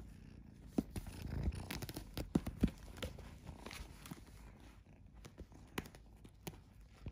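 A kitten scrambling about in a nylon fabric bag: rustling and scratching of paws on the fabric with scattered sharp clicks, busiest in the first three seconds and with two more clicks near the end.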